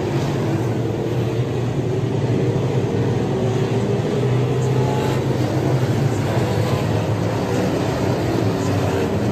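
A field of USRA limited modified dirt-track race cars with V8 engines running laps, several engines at once in a steady, loud drone whose pitches rise and fall as the cars go around.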